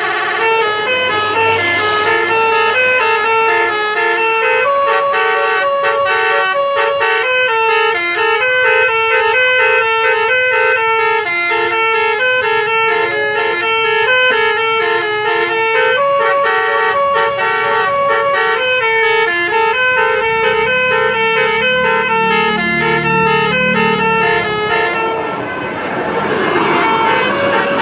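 Basuri telolet bus horn playing a tune: a rapid run of loud horn notes stepping up and down in pitch, one after another without a break.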